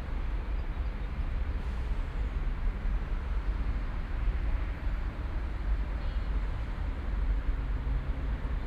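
City park ambience dominated by a steady low rumble of distant road traffic, with a soft even wash of background noise and no distinct events.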